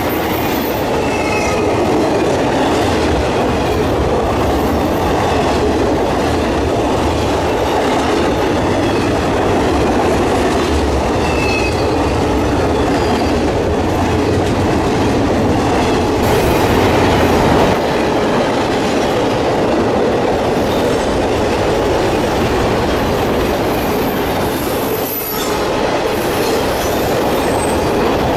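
Long intermodal freight train of container and trailer cars rolling past close by: the steady noise of steel wheels running on the rails, with a few brief faint wheel squeals now and then.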